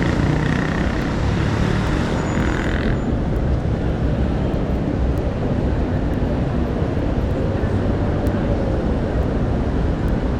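Steady low rumble of city street noise, with some fainter sound fading out in the first few seconds.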